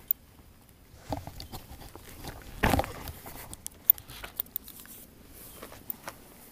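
Fabric sleeve brushing and rubbing over a chest-mounted action camera, with scattered clicks and knocks of handling noise, loudest in a rustling burst about two and a half seconds in.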